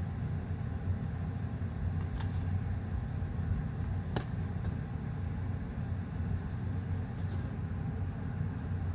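Steady low rumble, with a few light clicks as a Pokémon trading card is handled and flipped over, the sharpest about four seconds in.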